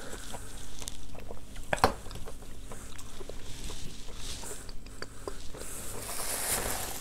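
Small clicks and crunches of a mouthful of edible chalk being chewed, with a glass set down on the table about two seconds in. Near the end, plastic packaging rustles as hands dig into the cardboard box.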